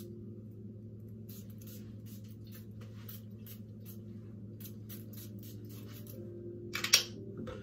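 Perfume atomizer sprayed over and over in quick short hisses, many in a row, with a louder sharp knock near the end.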